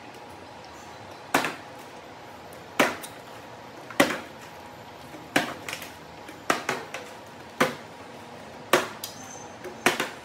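A partly filled plastic water bottle being flipped and landing on a hard kitchen countertop again and again: a string of sharp knocks about every one to one and a half seconds, some followed by a quick second knock as the bottle bounces.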